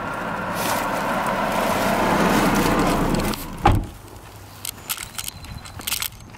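A car drives past close by, its engine and tyre noise building and then fading away about three seconds in, followed by a single dull thump.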